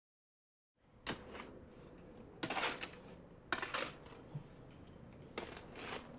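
A shovel digging into sandy mix in a wheelbarrow, the blade scraping and grating in short bursts every second or so. It starts about a second in.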